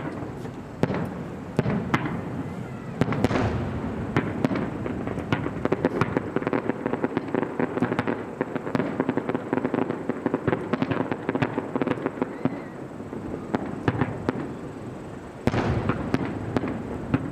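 Fireworks display: a dense, continuous run of bangs and crackling, with a burst of louder reports near the end.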